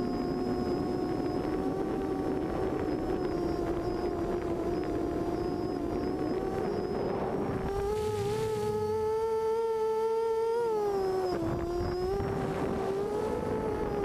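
Havoc 340 FPV quadcopter's four 2000kv brushless motors and 6-inch propellers whining steadily in flight, heard from the onboard camera with a rushing noise underneath. About eight seconds in the whine rises a little and holds, then dips briefly near eleven seconds as the throttle changes.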